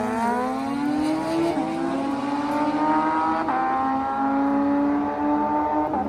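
A Kawasaki ZX-14 and a Suzuki Hayabusa drag bike, both inline-fours, accelerating hard down the drag strip away from the start line. The engine pitch climbs steadily and drops back at each upshift, about three shifts.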